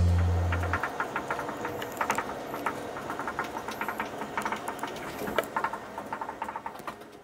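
Dry-erase marker squeaking and ticking on a whiteboard in short, irregular strokes as words are written. A held music chord dies away in the first second.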